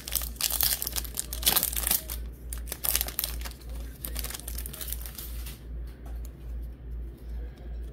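Foil wrapper of a Topps baseball card pack crinkling and tearing as it is ripped open and the cards are slid out. The crinkling stops about five and a half seconds in, leaving a low pulsing hum underneath.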